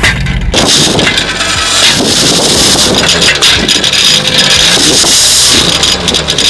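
Car exhaust fitted with an aluminium drink can as a prank noisemaker, giving a loud, dense rattling buzz over the running engine. The rattle sets in about half a second in and eases near the end, where the plain engine note comes back.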